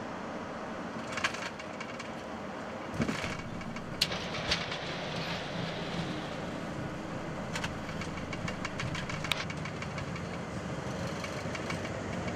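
Cockpit of an Airbus A220 during the landing rollout: a steady rush of engine and runway noise, with a few sharp knocks and clicks from the landing gear rolling over the runway.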